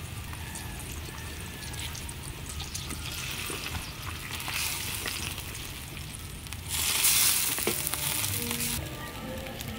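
Broth simmering and sizzling in a large wok around a whole duck. About seven seconds in a louder hiss lasts about two seconds, while a ladle pours broth back over the duck.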